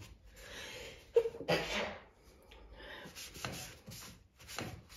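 A cloth rubbing and wiping the plastic base of an Ideal Automatic sewing machine in a series of short strokes, with a sharp knock and a louder rub a little over a second in.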